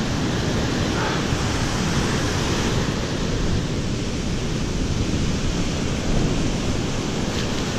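Ocean surf washing up the beach: a steady rush of breaking waves and foam at the water's edge.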